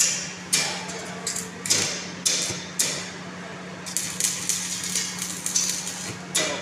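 Stick arc welding on a steel frame: the arc crackles and hisses in repeated bursts, each starting sharply and fading, about two a second. A steady low hum runs underneath.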